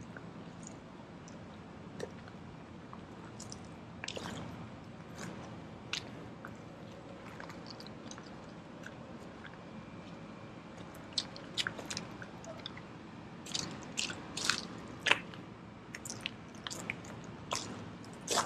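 Footsteps: scattered sharp crunches and clicks over a low steady background. They come about every two seconds at first, then thick and irregular from a little past the middle.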